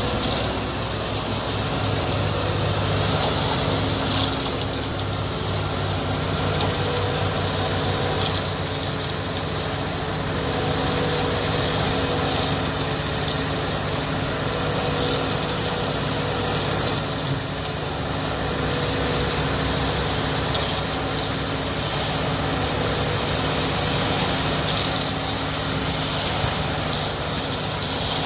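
Dry-mix concrete batching plant running while it loads a transit mixer truck: the machinery makes a steady hum with several held tones, under a rushing hiss that swells at times.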